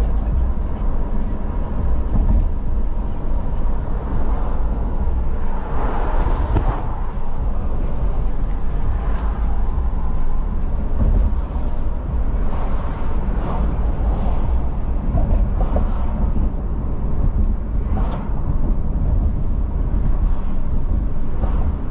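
Steady low rumble of engine and road noise inside a car driving through city traffic.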